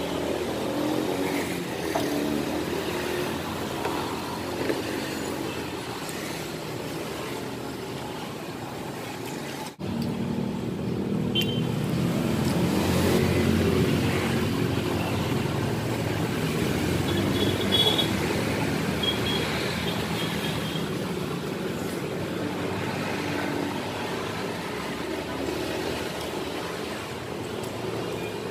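Steady road traffic running close by, with the engines of passing cars swelling and easing.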